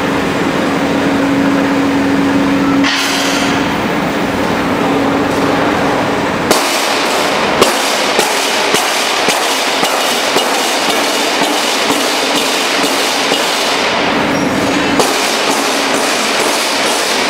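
Continuous nut-roasting machine running, with a steady hum from the feed hopper's gear motor at first. From about six seconds in it makes a regular mechanical clacking, about two knocks a second.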